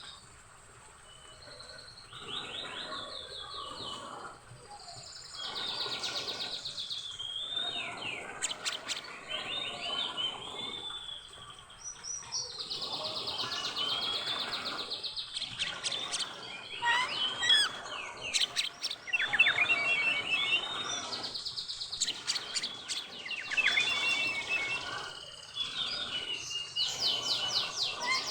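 Oriental magpie-robin (kacer) in breeding condition singing: a long, varied run of whistles, fast trills and chirps that starts about two seconds in and carries on without a break.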